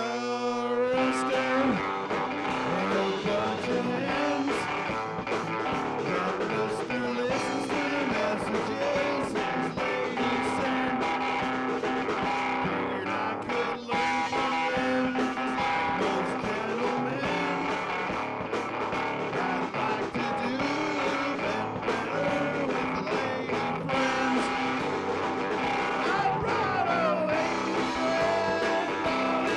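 A band rehearsing a rock song with electric guitar to the fore, recorded through a single microphone lying on the floor onto cassette tape.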